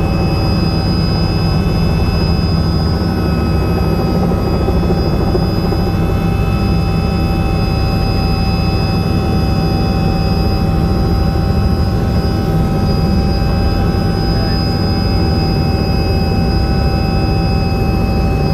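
Robinson R66 helicopter heard from inside the cabin: its Rolls-Royce RR300 turboshaft engine and rotor run steadily, a constant low drone with several high whining tones held steady above it.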